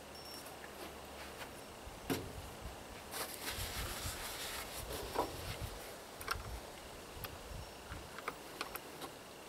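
A wrench working on lead-acid battery terminal nuts while cable connections are tightened: scattered light metal clicks and clinks, the sharpest about two seconds in, with a stretch of handling rustle in the middle.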